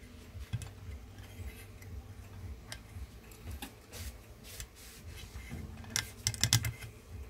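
Scattered small metal clicks and taps from an Allen key being fitted and turned in a small screw on an air rifle's carriage, with a quicker, louder cluster of clicks about six seconds in.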